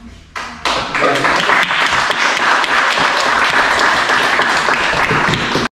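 Applause from a roomful of people clapping. It builds over about half a second near the start, holds steady, then cuts off abruptly at the end.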